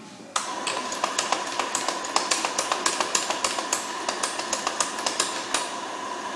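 Faema E61 espresso machine's pump running as a shot is pulled through the group head: it starts suddenly about half a second in and runs as a steady hum with a constant whine, over many irregular sharp ticks.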